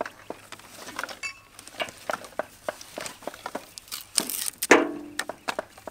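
Dry firewood sticks clicking and knocking against one another and the metal fire pan as they are arranged on the ash, an irregular run of sharp taps with a louder scraping burst a little past four seconds in.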